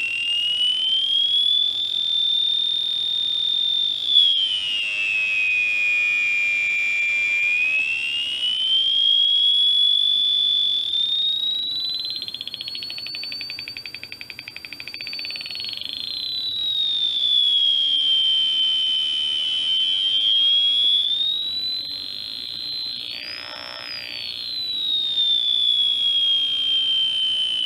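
Electronic siren tone from a 555 timer and 4046 chip breadboard circuit, played through the learning lab's speaker. It is a single high whistling tone that slides slowly up and down in pitch as the potentiometers are turned, with a wobbling warble near the middle and a quick dip and rise near the end.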